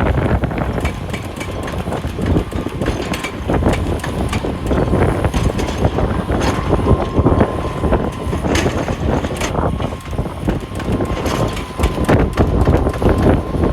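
Heavy wheel loader working under load, its diesel engine running steadily while rocks clatter and knock against the bucket and each other. A steady high whine runs underneath.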